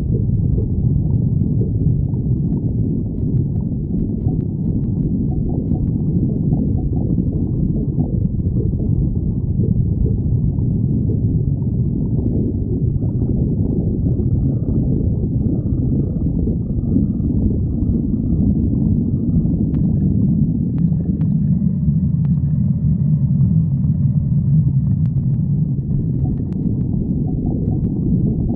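A person's stomach growling and gurgling in a continuous low rumble, with faint higher squeaks in the second half.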